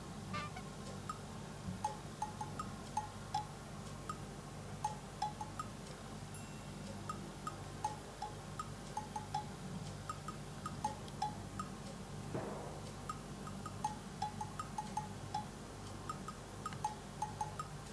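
Light, irregular tinkling of small bells or chimes: short ringing notes at a few repeating pitches, scattered through the whole stretch, over a low steady hum.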